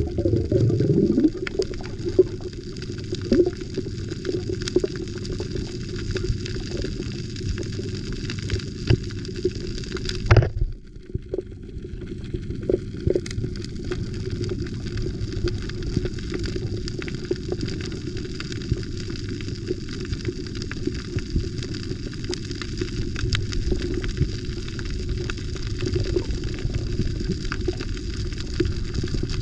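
Underwater audio of a camera moving over a coral reef: a steady muffled low rumble of water with many small crackling clicks. A thump comes about ten seconds in, after which it is briefly quieter.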